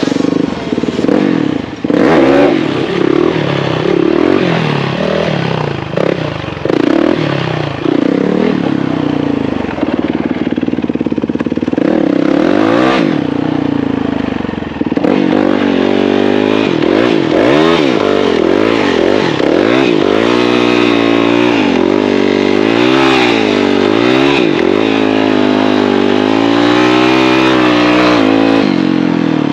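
Motorcycle engine running and being revved up and down over and over, its pitch rising and falling repeatedly, most steadily in the second half.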